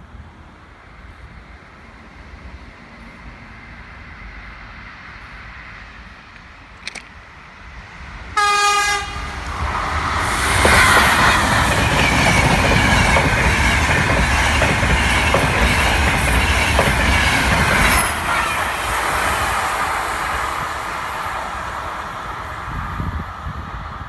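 Frecciabianca electric passenger train running through the station without stopping: its rumble builds as it approaches, a short horn blast sounds about eight seconds in, then a loud rush of wheels with clickety-clack over the rail joints and a thin high-pitched whine as the coaches pass, fading as the train moves away.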